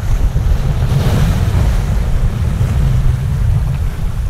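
Wind buffeting the microphone with a heavy rumble, over the wash of surf; the wash swells about a second in.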